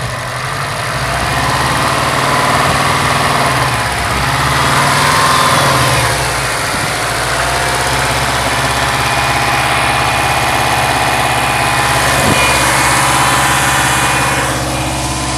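2005 Subaru Impreza WRX STI's 2.5-litre turbocharged flat-four running, its speed rising and falling over the first several seconds and then holding steady, with the knock the owner calls piston slap from a blown short block.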